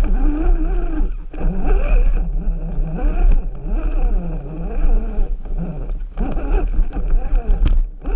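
RC rock crawler's electric motor and gear drive whining, the pitch rising and falling with the throttle, over a low rumble, with a few sharp knocks.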